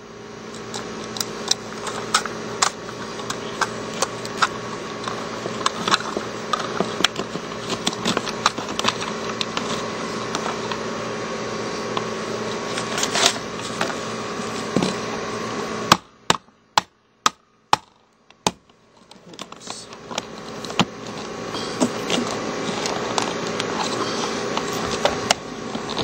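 Air-conditioning condenser unit running with a steady hum, over scattered clicks and scrapes as a plastic pop-in electrical box is worked into a hole in siding. About 16 seconds in, all sound drops out for about three seconds except a few clicks, then the hum returns.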